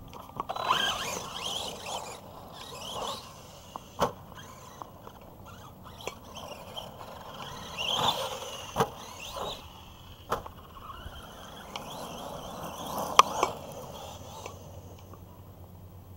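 Arrma Big Rock v3 RC monster truck running over dirt, its electric motor whining up and down in pitch as it accelerates and backs off, with tyres scrabbling on the dirt. Several sharp knocks from landings and hits come through, the loudest about 13 seconds in.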